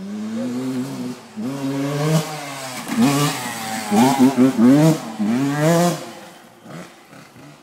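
Dirt bike engine revving as the bike rides along the trail, its pitch climbing and dropping over and over. It is loudest as the bike passes close, about three to six seconds in, then fades.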